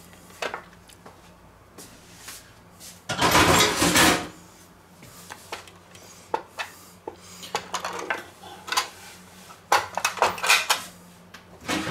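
Kitchen handling sounds: a rushing, scraping noise lasting about a second, starting about three seconds in, then a run of light clinks and knocks near the end as the stainless steel roasting tray is handled on a wooden board.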